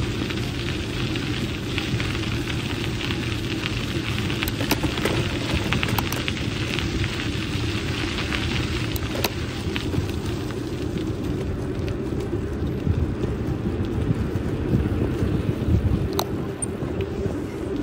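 Riding noise on a moving bicycle: wind buffeting the microphone as a steady low rumble, over the hiss of tyres rolling on a paved path, with a few faint clicks.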